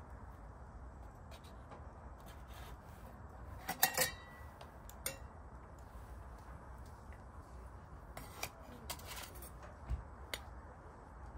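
Dishes and metal utensils clinking and clattering in scattered sharp knocks. The loudest is a quick double clink about four seconds in, with a short ring.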